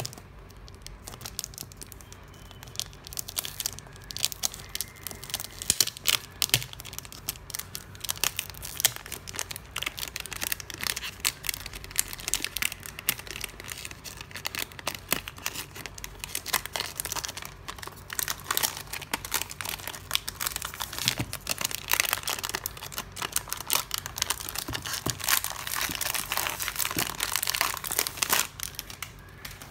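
Clear cellophane shrink-wrap being picked at, torn and peeled off a cardboard perfume box: a long run of sharp plastic crinkles and crackles, thickest in the last several seconds and stopping just before the end.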